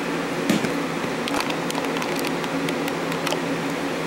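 Light clicks and taps of two polymer-framed Walther PPQ pistols being handled and turned, about a dozen scattered clicks, over a steady room hum.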